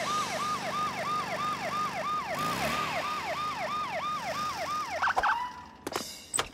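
Cartoon police car siren wailing in a fast rising-and-falling pattern, about two and a half cycles a second, then cutting off about five seconds in, followed by a brief steady tone and a few sharp clicks.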